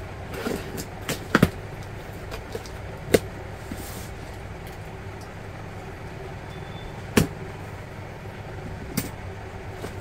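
Cardboard box being opened by hand: packing tape slit and pulled away and the flaps lifted, with a handful of sharp clicks and knocks of handling over a steady background hum.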